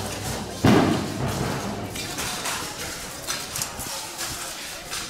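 A single loud thump about a second in, fading over about a second, over background murmur. Low music stops at about the same moment.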